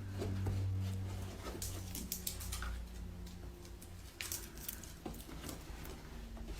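A dog's sounds with a low hum, loudest in the first second or so, and scattered light clicks and taps.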